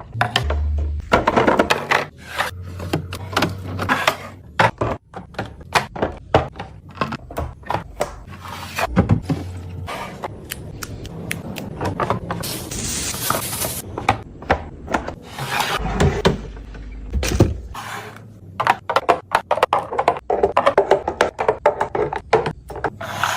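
Repeated knocks, clunks and clatter of food containers and items being moved and set down on refrigerator shelves. About halfway through there is a brief hissing rustle.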